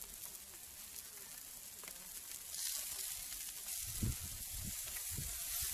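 Pollack fillets sizzling in sunflower oil in a frying pan on a portable gas stove, skin side down. The sizzle grows louder about halfway through, and there are a few low bumps near the end.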